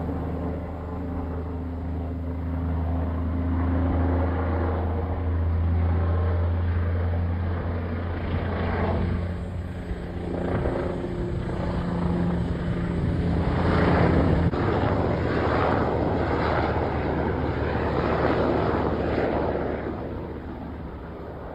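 Coast Guard rescue helicopter maneuvering to land, its rotors and turbine engines running with a steady low drone. The sound swells, loudest about two-thirds of the way in, then eases off near the end.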